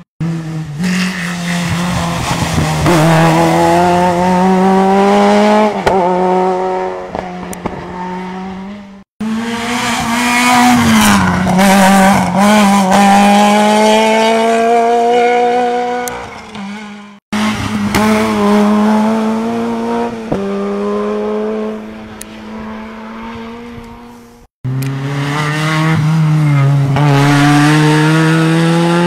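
Rally cars driven hard on a wet tarmac stage, one after another, their engines revving high with the pitch climbing steadily under acceleration. The sound cuts off abruptly three times as one car's run gives way to the next.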